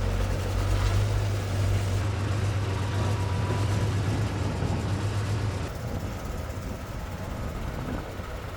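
Engine of farm lifting machinery running steadily with a deep hum, which drops noticeably in level a little over halfway through.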